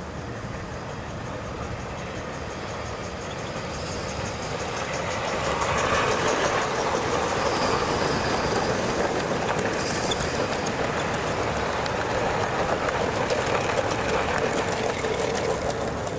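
Long model goods train on a garden railway rolling past, its many wagon wheels rumbling and clicking along the metal track. It grows louder as the wagons come by and starts to fade near the end.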